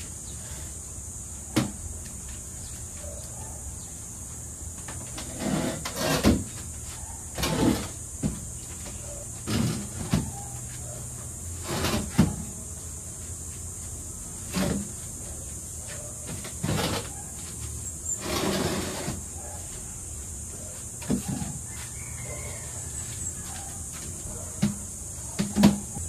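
Household clatter: a string of knocks and bumps, one every second or two, with a few short scraping rustles, as things are handled and set down, over a steady background hiss and hum.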